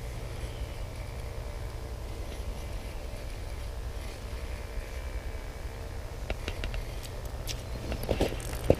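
Steady low wind rumble on the microphone, with a few faint clicks near the end from a fishing reel being cranked.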